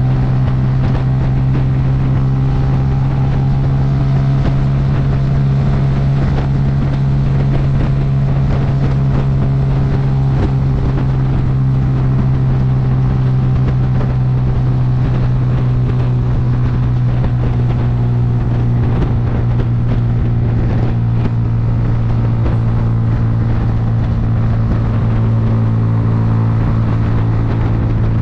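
Bajaj Boxer motorcycle's single-cylinder four-stroke engine running steadily at cruising speed, its note easing slightly lower near the end.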